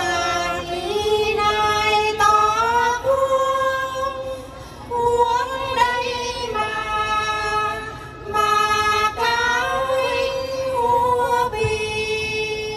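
Women singing hát then, the Tày people's traditional sung chant, in long held phrases that glide between notes, with two short breaks between phrases.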